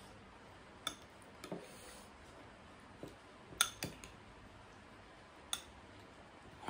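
Metal spoon clinking and scraping against a small ceramic soup bowl: several sharp clinks a second or two apart, the loudest two close together about three and a half seconds in.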